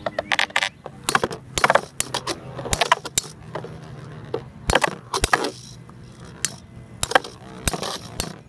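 Two metal-wheeled Beyblade tops, Galaxy Pegasus W105R2F and Sol Blaze V145AS, spinning in a plastic BB-10 stadium, their metal wheels clashing in sharp clacks a dozen or so times at uneven intervals over a low steady hum of spinning.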